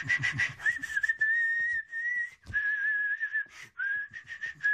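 A man whistling a wavering tune that hovers around one high note and breaks off briefly a couple of times, over short light taps of footsteps.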